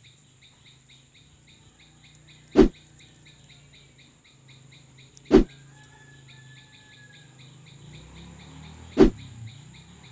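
Insects chirping in a fast, even pulse of several chirps a second over a steady high insect whine and a low hum. Three loud, short thumps cut through, about three seconds apart.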